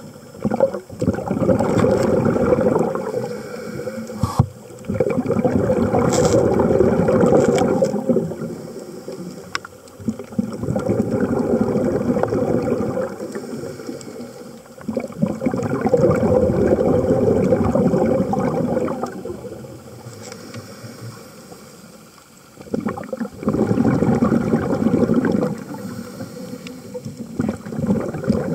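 A diver's exhaled air bubbling past an underwater camera in slow, regular bursts every four to five seconds, each lasting a few seconds, with quieter spells between for the in-breaths.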